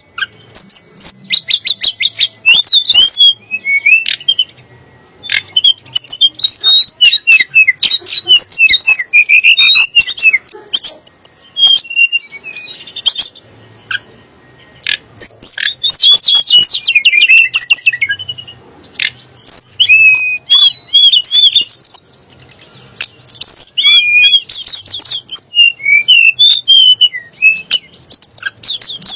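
Tledek gunung songbird singing loudly: rapid runs of varied chirps, trills and whistles, broken by short pauses.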